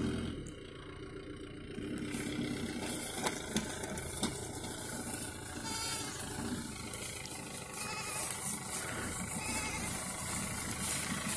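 Mahindra Bolero Pickup's diesel engine running at low speed under a heavy load, with a few short sharp knocks a few seconds in.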